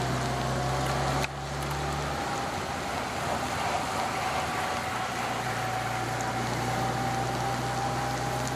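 Engine of a vehicle following a time-trial cyclist running steadily, with an even hiss from tyres and rain on the wet road. The low engine hum changes abruptly about a second in.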